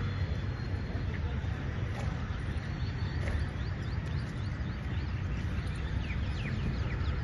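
Steady low outdoor rumble, with a few faint, short bird chirps in the second half.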